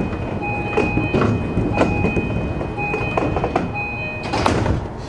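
Train door-closing chime on an E233-series commuter train: electronic tones sounding on and off, with the clunks of the sliding doors. The loudest clunk comes near the end as the doors shut.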